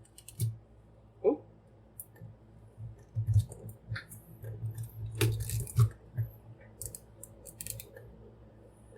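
Scattered clicks and scrapes of hard plastic toy parts being handled as a wing piece is fitted onto an action figure. A short exclaimed "oh" comes about a second in.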